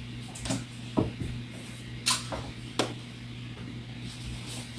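A few light clicks and taps of handling at a sewing machine, over a faint steady low hum.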